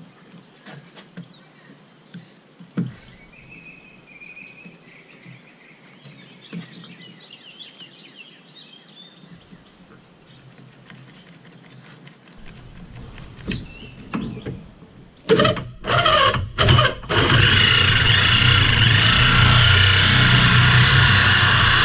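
Birds chirping softly, then a corded drill driving a 3 1/8 inch Milwaukee hole saw: a few short trigger bursts about two-thirds of the way in, then steady running as the saw trims the edge of a metal mounting plate whose hole is slightly smaller than the saw.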